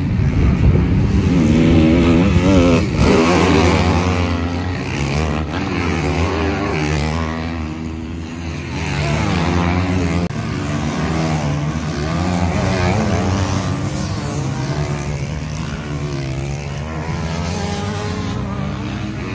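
Several off-road motocross motorcycles racing on a sand track, their engines revving up and down in many overlapping pitches as they pass. It is loudest in the first few seconds.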